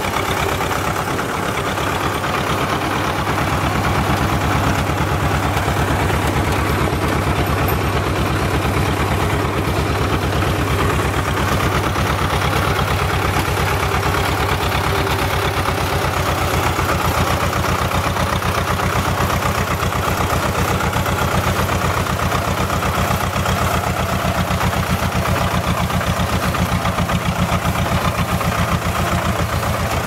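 Small wheeled tractor's diesel engine running steadily as the tractor drives across a field, hauling a load of cut branches in its bed.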